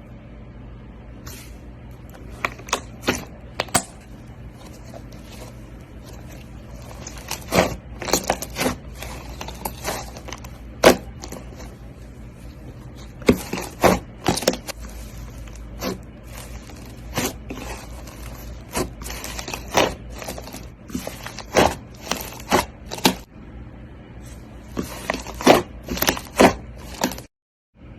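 Hands squishing and pressing slime, with sharp pops and crackles at irregular intervals over a steady low hum. The sound cuts out for a moment near the end.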